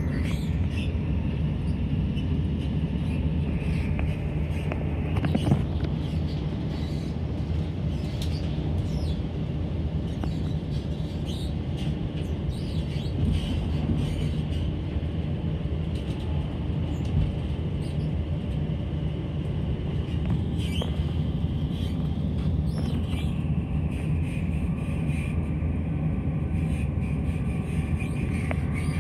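Class 170 Turbostar diesel multiple unit running at speed, heard from inside the passenger carriage: a steady rumble from the underfloor diesel engine and the wheels on the rails, with a few light clicks and knocks.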